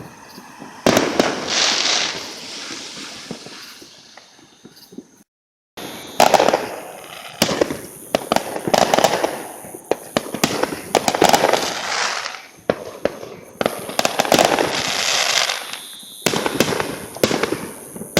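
Fireworks going off. There is a bang about a second in, followed by a few seconds of crackling. After a brief gap of silence comes a quick run of bangs and crackling bursts, about one a second.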